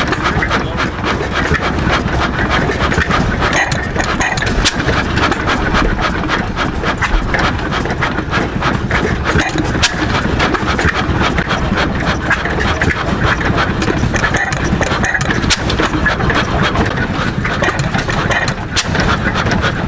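Lauson-Lawton antique stationary gas engine running, with a steady clatter of many sharp clicks and knocks.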